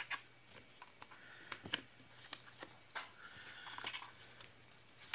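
Light clicks and scraping of a plastic cover plate being handled and pushed into place on a chainsaw's engine housing.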